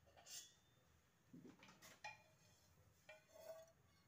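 A few faint clinks and taps of kitchen utensils, two of them with a brief metallic ring about two and three seconds in.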